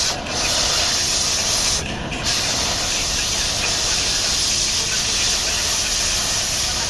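Compressed air hissing from an air gun in a body shop, in two long blasts with a short break about two seconds in.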